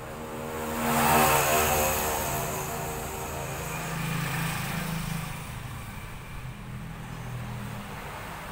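A motor vehicle passing by, loudest about a second in, its engine note falling in pitch as it goes past, then a lower engine drone that gradually fades.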